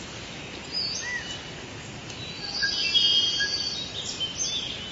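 Jungle ambience: several birds calling with short whistles and trills over a steady background hiss, busiest about halfway through.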